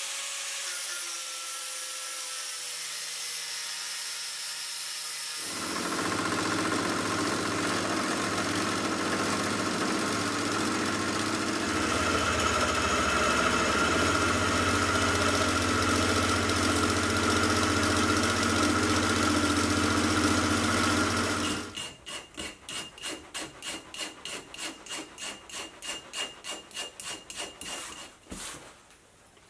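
Benchtop milling machine (Sieg X2.7L) running steadily under cut, with a low motor hum, while counterboring holes in a steel block. After about twenty seconds it stops and a hand tool rasps back and forth on the steel, about three strokes a second.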